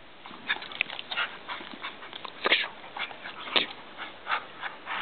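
Two dogs play-fighting: a quick, irregular string of short yips and whines, with louder ones about two and a half and three and a half seconds in.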